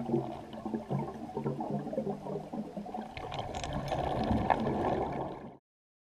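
Underwater bubbling and gurgling from a diver's helmet exhaust bubbles, with scattered clicks and knocks. It cuts off suddenly about five and a half seconds in.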